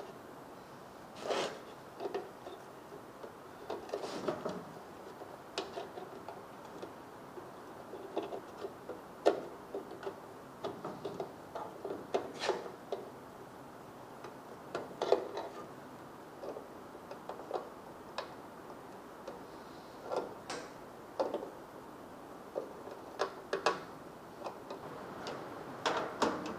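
Irregular small clicks, taps and handling knocks of hand work on the generator's control panel while the replacement kill switch is fitted into its newly drilled hole.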